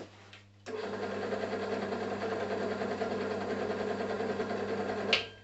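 Draper pillar drill switched on with a click and run steadily at its slow belt speed, a motor hum with belt-and-pulley whir, then switched off with a sharp click near the end. It is running with its pulley cover lined with aluminium-backed bitumen deadening and rubber grommets under its base, which the owner measured as cutting its noise by about 10 dB.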